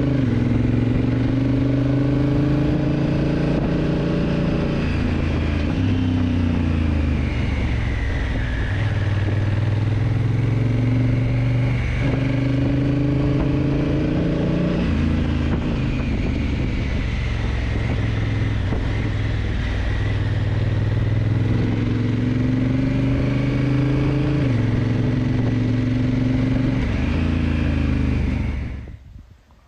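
Honda CRF1000L Africa Twin's parallel-twin engine under way. Its pitch climbs and steps down several times as the dual-clutch transmission changes gear, over steady wind noise. The sound cuts off suddenly near the end.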